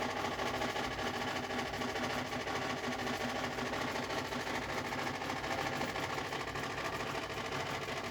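Brand-new Frigidaire Gallery FGHB2868TF7 refrigerator running with a steady, even mechanical hum made of several held tones. It has a huge noise level, like a tractor, which the owners take to be a fault with this fridge.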